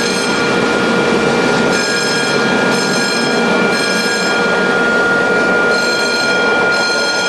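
Aircraft hangar foam fire suppression system discharging: a steady rushing spray noise with a continuous high tone held over it.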